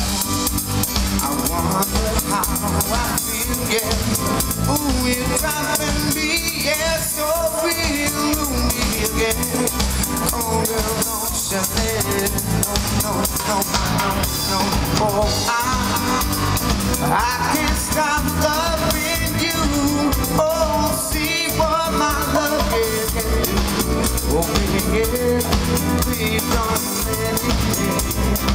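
Live pop band playing through the PA: drum kit, electric guitar and a male voice singing, steady and loud, heard from the audience in front of the stage.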